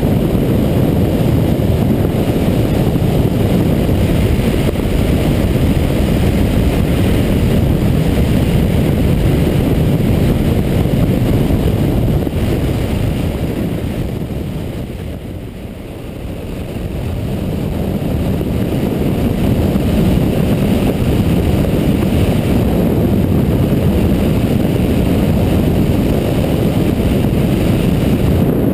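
Wind rushing over the microphone of a Yamaha MT-09 Tracer motorcycle ridden at high speed, a loud steady rumble that fades down briefly about halfway through and rises again.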